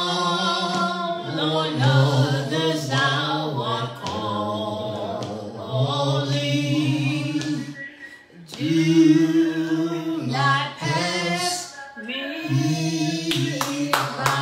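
A man singing unaccompanied into a handheld microphone, in long held phrases with short breaks between them. Steady hand clapping joins in near the end.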